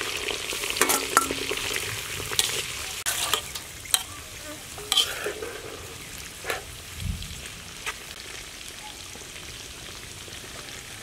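Oil sizzling in a wok as bats deep-fry with lemongrass and leaves, slowly growing quieter. Scattered sharp clicks and pops through the first eight seconds, and one low thump about seven seconds in.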